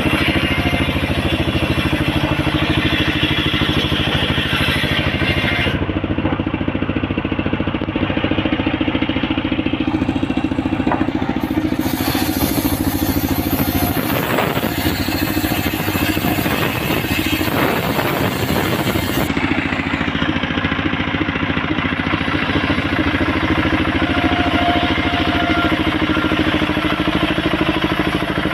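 Homemade engine-driven circular sawmill running steadily as its blade cuts coconut-palm wood, the sawing growing harsher and brighter for several seconds in the middle.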